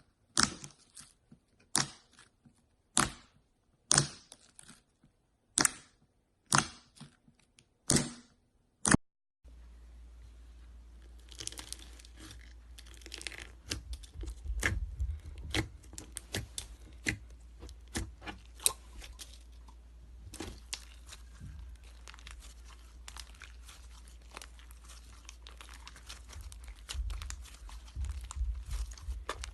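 Slime being worked by hand. First comes a series of sharp pops about once a second, then after about nine seconds a long stretch of irregular crackling and crinkling, over a low hum.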